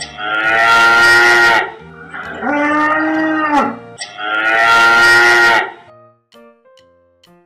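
Dairy cow mooing three times, each moo a long, drawn-out call; the middle one is lower and a little shorter.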